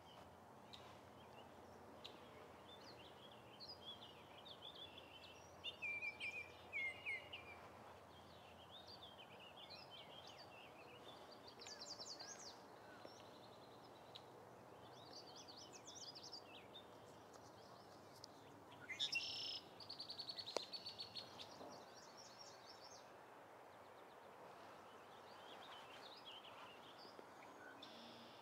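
Faint songbirds chirping and singing over a steady outdoor hush. There are short trilled phrases throughout, with louder bouts about six seconds in and, loudest, about nineteen seconds in.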